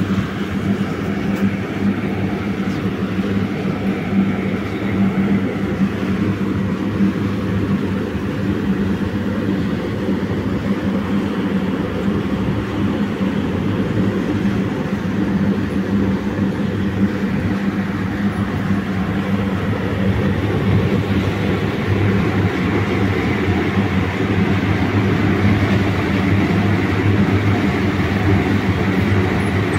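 A steady mechanical hum over a rushing, airy noise, growing slightly louder about two-thirds of the way through.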